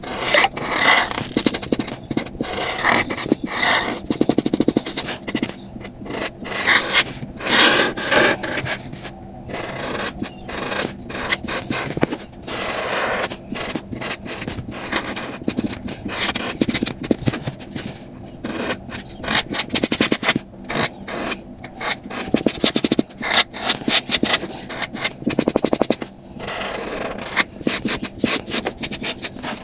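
Felt-tip marker colouring on paper in rapid back-and-forth scratchy strokes, in runs of a few seconds broken by short pauses.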